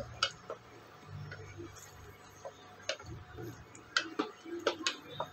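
Slotted wooden spatula knocking and scraping against the sides of a stainless steel pot while mushroom masala is stirred: scattered sharp clicks, clustered near the end.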